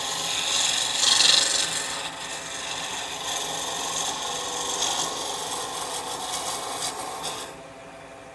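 Gouge cutting a cocobolo pen blank spinning on a Jet JWL-1221VS lathe: a steady scraping hiss as shavings peel off the wood. It is loudest about a second in and grows quieter near the end.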